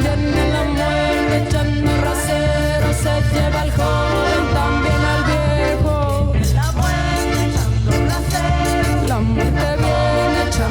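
Live cumbia band playing a steady beat, with bass, percussion and melody instruments, in an instrumental passage after the chorus.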